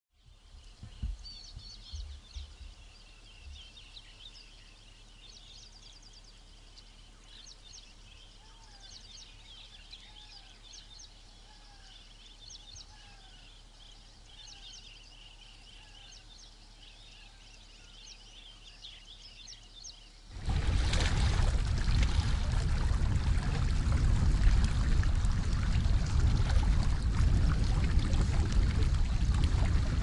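Quiet forest ambience with birds calling, a short falling whistle repeated every second or so over high chirping, and a few soft knocks near the start. About two-thirds of the way in this gives way abruptly to a loud, steady rushing of wind and choppy open water.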